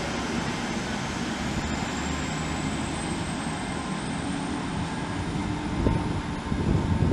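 Hitachi Class 800-series Intercity Express Train pulling away from the platform: a steady rumble with a faint high whine rising slowly in pitch as it gathers speed.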